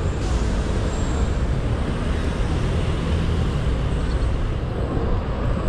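Steady rumble and hiss of wind and tyre noise from a moving Xiaomi Mi 1S electric scooter, with road traffic around it.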